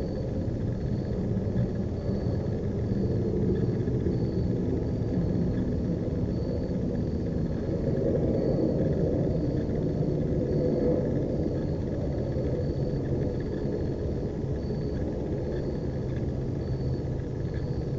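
Steady low rumble of outdoor night background noise, swelling a little in the middle, with a faint high-pitched chirp repeating at an even pace throughout.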